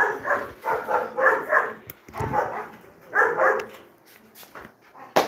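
A dog barking repeatedly, a quick run of barks over the first three and a half seconds, then a single sharp knock near the end.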